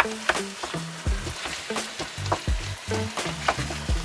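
Chili con carne of minced meat and corn sizzling in a frying pan while a spatula stirs and scrapes through it, in quick irregular strokes.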